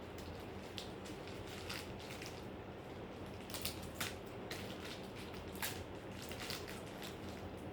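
Scattered small clicks and taps, with the loudest a few seconds in, over a steady low hum.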